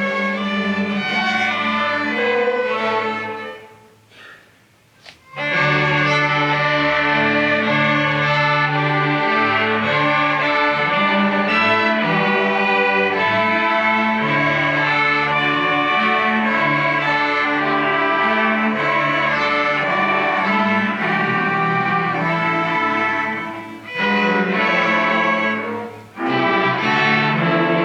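Student string orchestra playing, violins over cellos in sustained bowed notes. The music breaks off about four seconds in, rests for just over a second and comes back in full, with another short break near the end.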